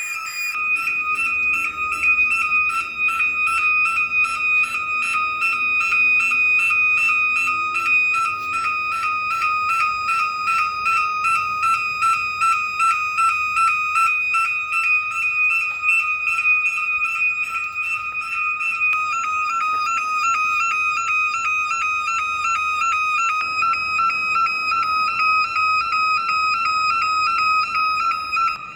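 Factory fire alarm sounding on test: a steady, high-pitched electronic tone pulsing rapidly and evenly.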